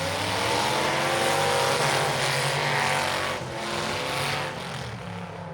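Demolition derby car engines revving hard under load, loudest in the first three seconds and easing off after that.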